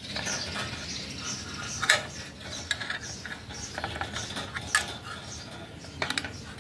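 Irregular metallic clicks and rattles as a wooden snap trap's wire bail and coil springs are handled against a wire grill, the sharpest click about two seconds in.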